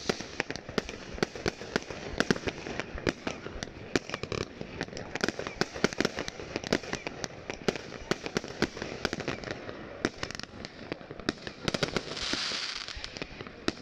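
New Year's fireworks going off in a dense, continuous barrage of bangs and crackles, several a second, with a burst of hiss near the end.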